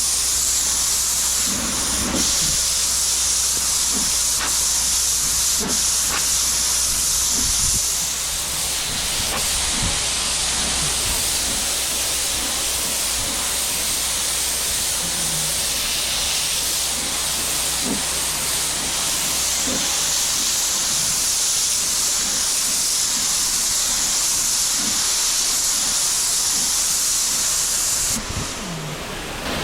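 Pressure washer spraying water in a steady, loud hiss, with a steady low hum from the machine underneath and a few faint knocks. The hiss drops away near the end.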